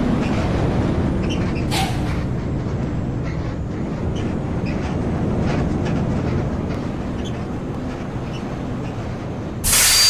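Tour bus on the move: a steady, loud low rumble of engine and road noise, with a short, loud hiss of noise near the end.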